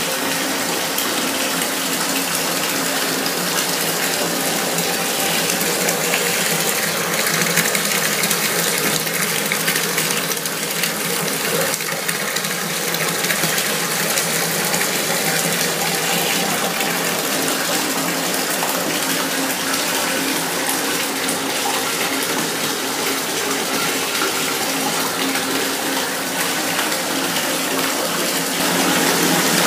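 Bath tap running steadily, water pouring into a partly filled bathtub.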